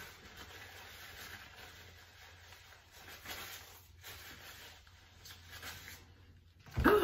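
Faint rustling of a paper napkin being rubbed between the hands as they are wiped, swelling a few times. A short vocal sound starts near the end.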